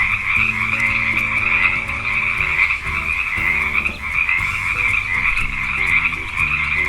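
Frogs calling in a dense, continuous chorus of croaks, over a light musical backing.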